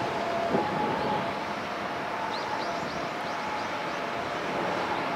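Steady outdoor background noise, an even hiss and rumble with a faint steady hum in it. A few faint short high chirps come about halfway through.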